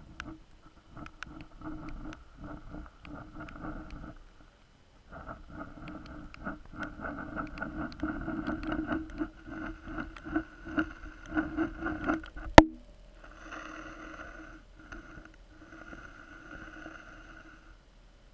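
Muffled sound picked up underwater through a camera's waterproof housing: a steady hum with overtones that swells and pulses in loudness, with many scattered clicks. One sharp knock comes about twelve and a half seconds in. After it the hum goes on more faintly, breaking off briefly a few times.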